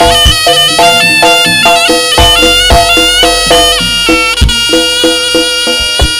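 Live Javanese Jaranan accompaniment: a slompret (Javanese shawm) plays a loud melody stepping from note to note over kendang drum strokes and gamelan percussion.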